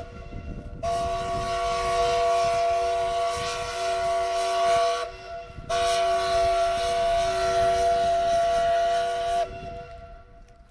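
Steam whistle of the Finnish steam launch "Lauri" blowing two long blasts of about four seconds each, with a short break between them. Each blast sounds several notes at once over a hiss of steam.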